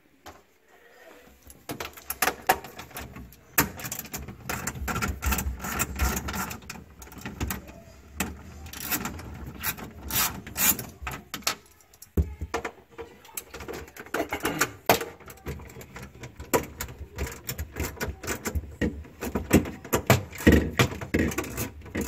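Quarter-inch socket wrench backing out the screws that hold a refrigerator's plastic fresh food compartment: a run of quick, irregular clicks and knocks, pausing just after the start and again about halfway through.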